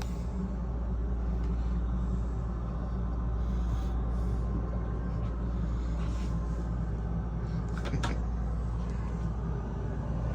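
Boat's air conditioning running, a steady low hum. A brief click about eight seconds in.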